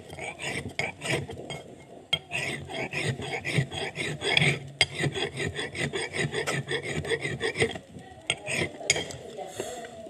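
A thin dark rod clinking and scraping against a lump of black stone, a quick irregular run of sharp clicks that thins out near the end.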